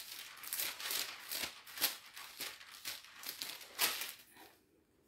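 Thin Bible pages being leafed through: a run of paper rustling with several sharp page flicks, stopping about four and a half seconds in.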